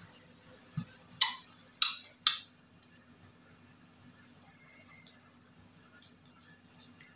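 Three sharp knocks close together about a second in, a knife striking a stainless steel bowl. Behind them a cricket chirps steadily in short, evenly repeated high pulses.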